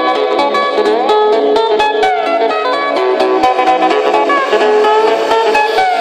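Electronic dance track playing loudly through small SoundSOUL water-dancing speakers, with a steady beat, a plucked-sounding melody with sliding notes, and little bass.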